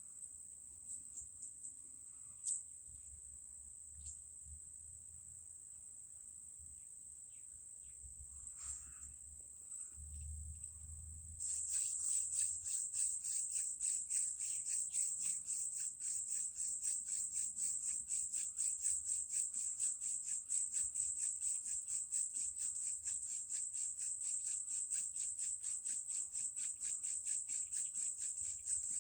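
Insects chirring steadily at a high pitch, with a few faint knocks. About twelve seconds in it gets louder and turns into a fast, even pulsing.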